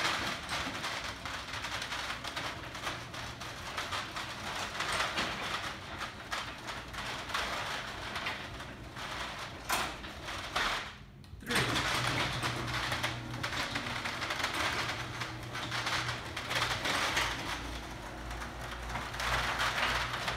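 Electric openers driving sectional overhead garage doors down: a loud, steady rattling mechanical run that stops briefly about eleven seconds in, then starts again with a steady low hum underneath.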